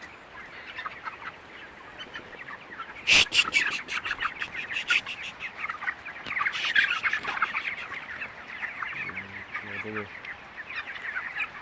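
A flock of 23-day-old broiler chickens peeping and chirping continuously, with louder bursts of rapid peeps about three seconds in and again around six to seven seconds in.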